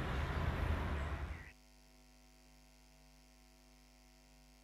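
Steady city traffic noise that cuts off sharply about a second and a half in, leaving a faint, steady electrical mains hum.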